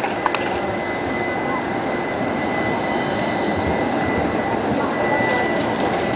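Electric street tram passing close by at low speed: the rumble of its wheels on the street-embedded rails with a steady high whine over it. A sharp click about a quarter of a second in.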